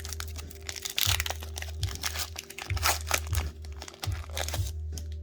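Foil wrapper of a Pokémon trading card booster pack crinkling and tearing as it is opened by hand, a fast run of crackles that stops near the end.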